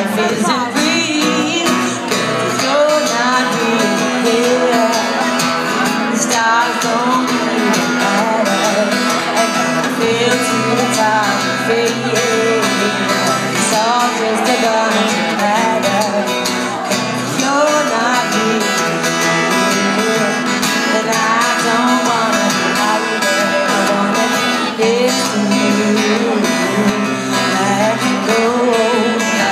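Live acoustic guitar strummed as accompaniment, with a woman singing over it through a microphone.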